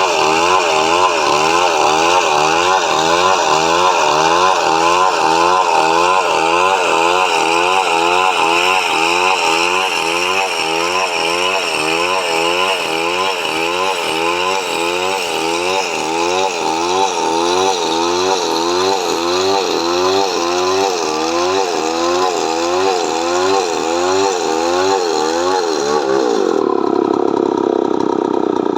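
Chainsaw running under load, ripping coconut wood lengthwise, its engine pitch wavering up and down about twice a second. Near the end the sound changes to a steadier, lower tone.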